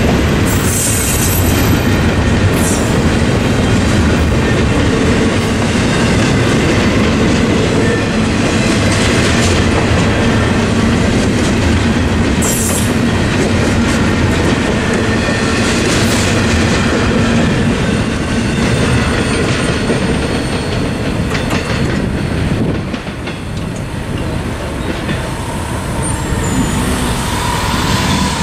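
Double-stack intermodal freight train's well cars rolling past close by: a steady rumble with wheels clicking over the track and a few brief high wheel squeals in the first half. The rumble drops off about 23 seconds in as the end of the train passes.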